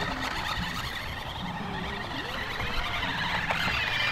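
Electric motor and gears of an RC toy Jeep whining as it drives over dirt, with a thin high whine coming in near the end.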